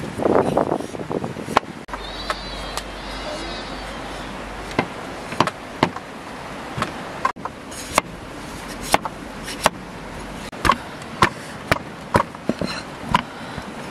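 Large kitchen knife peeling a green papaya in quick strokes, each a short crisp cut through the firm skin, roughly one a second.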